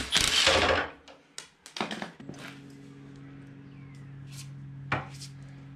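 Cordless Milwaukee impact wrench running in one short burst of under a second, spinning the nut off a Land Cruiser's tie-rod end, followed by a few clicks and knocks of tools. About two seconds in a steady low hum starts and holds.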